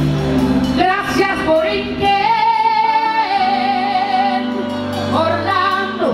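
Female lead singer belting a salsa song over a live band with timbales, holding one long note with vibrato through the middle.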